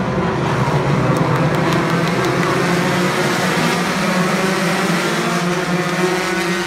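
A full field of USF2000 open-wheel race cars, each with a 2.0-litre Mazda four-cylinder engine, running hard together at the start, many engines overlapping into one loud, steady mass of sound.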